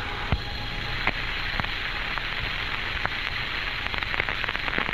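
Open radio channel of the Mercury capsule's air-to-ground voice link between transmissions: steady static hiss with scattered crackles and clicks, the crackling growing denser near the end.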